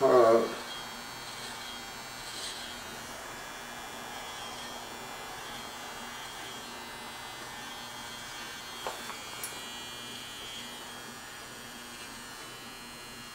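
Electric hair trimmer running with a steady buzz as it cuts hair, with a couple of light clicks about nine seconds in.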